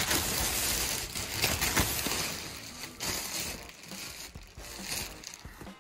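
Thin plastic wrapping crinkling and rustling as hands pull it off the pet feeder, loudest in the first few seconds and fading toward the end.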